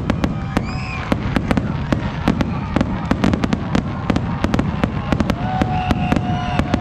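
Aerial fireworks display: a rapid, dense string of sharp bangs and pops over a continuous low rumble.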